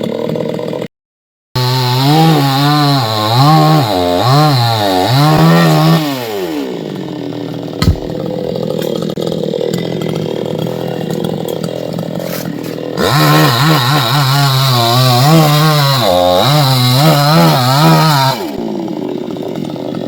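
Two-stroke chainsaw cutting coconut palm wood, its engine revving high with the pitch wavering as the chain bites, then dropping back to a lower, steadier run. It revs and cuts again for a few seconds past the middle before easing off, with a brief dropout in the sound near the start.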